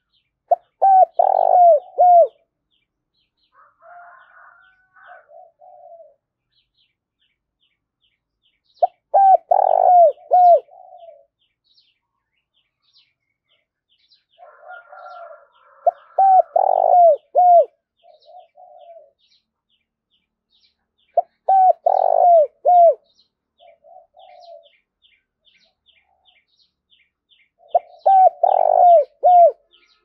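Spotted dove cooing: five loud phrases of several notes, each about two seconds long and coming roughly every six seconds. Softer, quieter calls fill the gaps between the phrases, and faint high chirping runs behind. This is a decoy cock dove calling hard.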